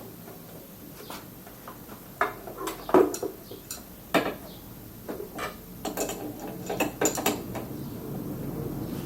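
Irregular metallic clicks and clinks of a spanner working a nut on a moped's front fork, with sharper knocks about two, three and four seconds in and a quick cluster of clicks near the end.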